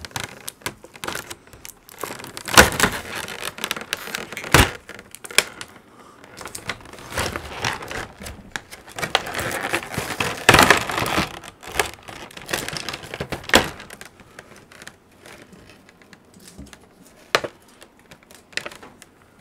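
Packing tape being picked at and torn off a cardboard box, with irregular crinkling and scraping of the packaging and a few sharp, loud rips among them.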